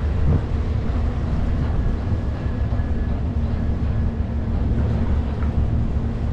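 Marine engines and machinery running with a steady low rumble and a faint, even hum over it.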